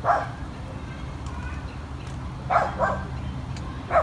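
A dog barking: one bark at the start, a quick double bark about two and a half seconds in and another bark at the end.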